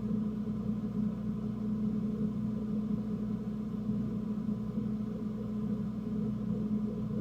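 A motor running steadily with a low, even hum that holds one pitch throughout.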